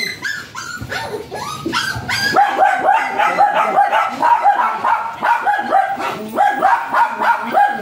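A dog yapping without a break, short high yaps repeated several times a second, each dipping in pitch.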